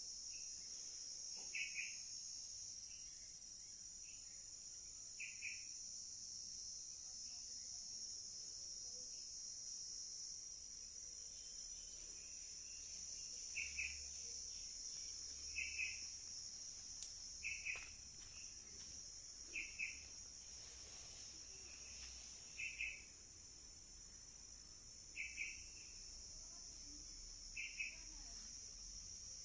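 Crickets trilling in a steady, high-pitched drone, with short double chirps repeating every two to three seconds.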